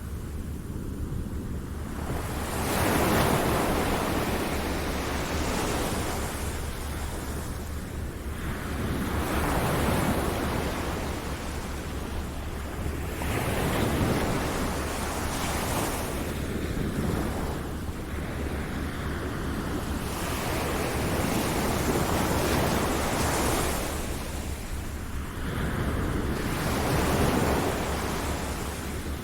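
Ocean surf: waves breaking and washing in, swelling and easing every few seconds, over a steady low rumble.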